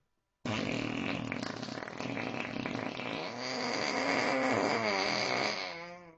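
One long, unbroken rude bodily noise from a person, starting about half a second in, its pitch wavering near the end before it stops.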